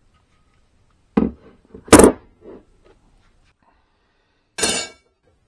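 A few heavy knocks and thunks of billet flex plates being flipped over and set down on a bench: one about a second in, the loudest at two seconds, and a clunk with a brief ring near the end.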